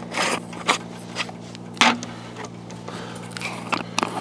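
Irregular light clicks and taps as salt is added to a pot of stew ingredients and the salt container is handled, with the sharpest tap a little under two seconds in. A steady low hum runs underneath.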